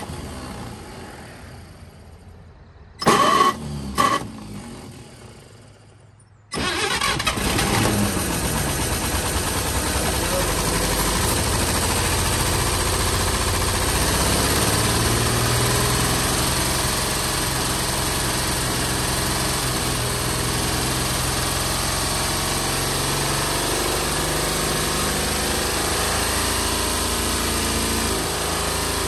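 1953 GMC one-ton truck's inline-six engine, after two short bursts, catches about six seconds in and keeps running steadily on ether sprayed into the carburettor. It is an engine that had sat seized for over 20 years.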